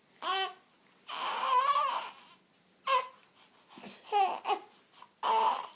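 Young baby crying in five short high-pitched wails, the longest starting about a second in and lasting just over a second.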